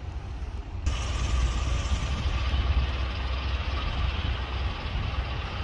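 Steady road-traffic noise with a low rumble; about a second in it turns abruptly louder and hissier.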